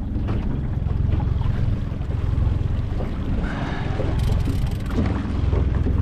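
Small outboard motor of a 12-foot aluminum boat running steadily at trolling speed, with wind and waves in the background.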